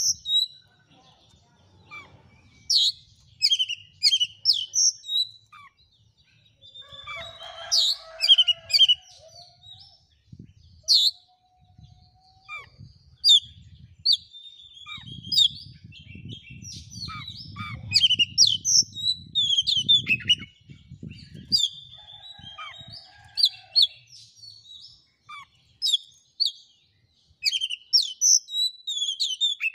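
Oriental magpie-robin (kacer) singing a varied song of short, sharp whistled notes and chattering phrases with short pauses between phrases.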